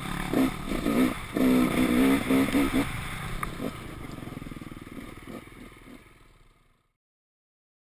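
KTM two-stroke enduro motorcycle engine revving up and down in quick blips through the first few seconds, then running more evenly as the sound fades out to silence near the end.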